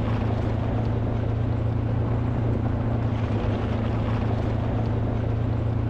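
A steady, unchanging low motor hum.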